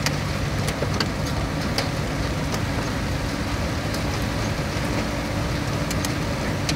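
Steady wind and road noise from a moving vehicle with a low engine hum underneath, and scattered sharp ticks, like raindrops hitting the microphone.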